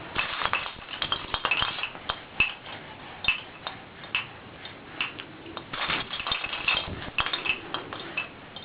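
Baby's toy rattles being knocked about by a baby: an irregular run of clicks and light, ringing clinks.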